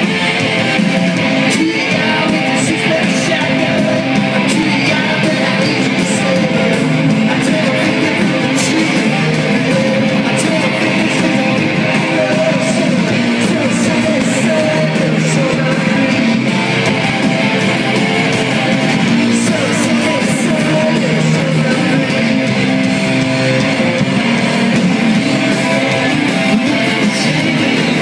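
Live rock band playing loud, with strummed guitar to the fore throughout.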